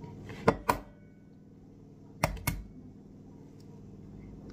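An egg knocked against the rim of a stainless steel mixing bowl to crack it: two quick sharp taps, then two more about a second and a half later.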